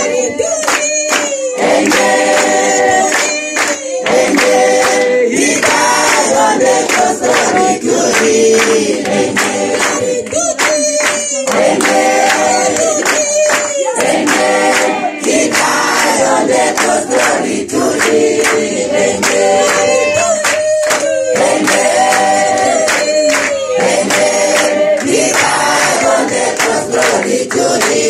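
Church congregation singing a gospel chorus together, clapping along in time.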